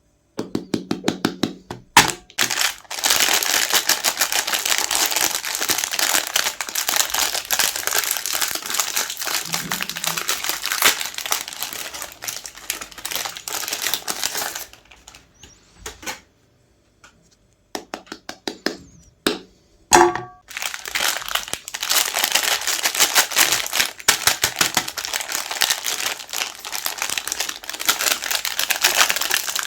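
Chocolate-coated Magnum ice cream bars being crushed in a meat grinder: a dense crinkling crackle of rapid clicks and cracks. It dies away about halfway through for a couple of seconds, then starts up again.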